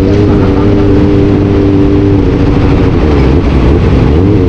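Vehicle engine running loud and steady at high revs, its pitch dipping briefly near the end and then coming back up.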